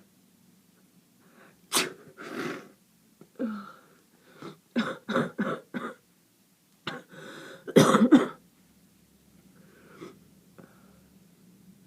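A person with a heavy head cold sneezing and coughing: a sharp burst about two seconds in, a quick run of about five coughs around the middle, and the loudest sneeze, led in by a drawn-in breath, about eight seconds in.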